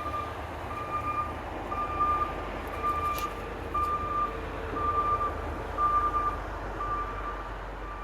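Backup alarm of a gravel-hauling work vehicle beeping steadily, about one beep a second, over the low rumble of its engine as it reverses.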